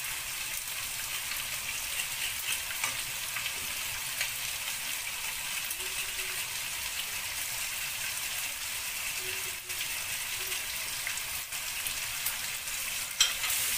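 Sliced onions frying in oil in a nonstick pan: a steady sizzle, with one sharp click shortly before the end.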